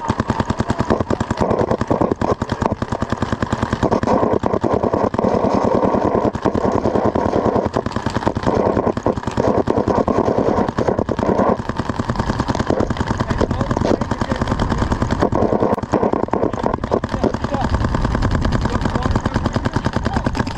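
A small engine running steadily, with a fast, even pulse that goes on without a break.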